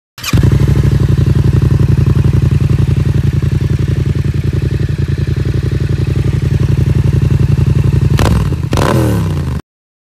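Yamaha XSR700's 689 cc parallel-twin engine running through an aftermarket Arrow exhaust, idling with a steady pulsing beat. Near the end it is blipped twice, the revs rising and falling back, before the sound cuts off suddenly.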